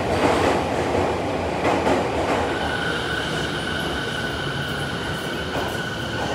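Commuter train running into the platform and slowing, a dense rumbling of wheels and cars. About two and a half seconds in, a high, steady squeal sets in and holds as the train brakes.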